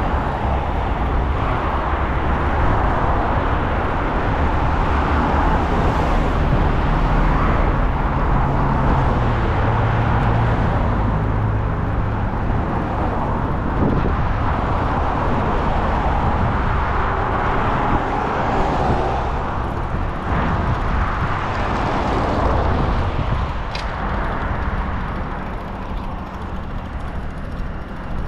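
Steady, loud rumble and hiss of riding a bicycle outdoors: wind buffeting the microphone and road noise, with traffic sounds mixed in.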